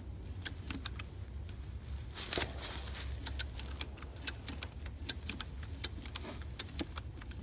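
Ratchet strap being cranked, its pawl clicking in quick irregular runs as the strap tightens under the weight of the log it is lifting.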